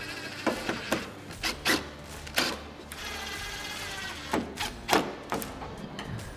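Makita 18V cordless drill driving screws into a front indicator lens housing: short runs of motor whir with sharp clicks and knocks from the tool and the plastic lens. About three seconds in comes a longer, steady motor whine of about a second.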